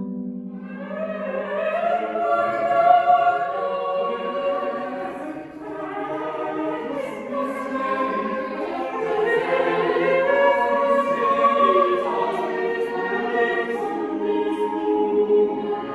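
Small mixed choir of men and women singing together, holding sustained notes in several voices at once.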